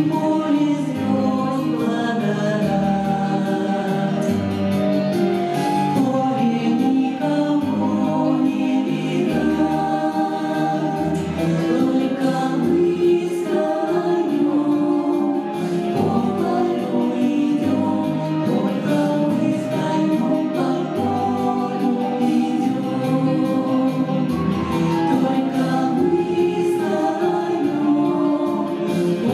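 Vocal ensemble singing in harmony, several voices holding sustained notes over an instrumental accompaniment with a low bass line.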